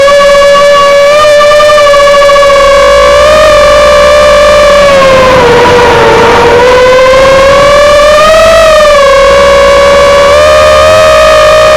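Brushless motors of a 3-inch FPV drone whining loudly: one high tone that sags about six seconds in, then climbs again a couple of seconds later as the throttle changes.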